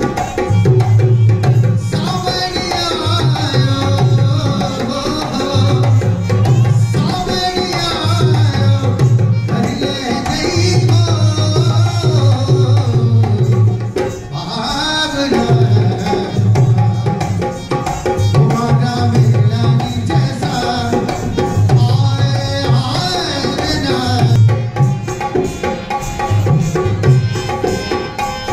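Live Rajasthani folk music: a dholak-style barrel drum beating a steady, repeating rhythm under a bending sung melody.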